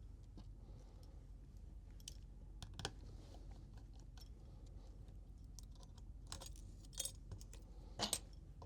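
Faint, scattered clicks and taps of small metal repair tools on the screws and frame of an iPhone 12 Pro, with a louder double click near the end, over a steady low hum.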